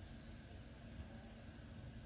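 Faint outdoor background: a low, even rumble with a faint steady hum and no distinct sound events.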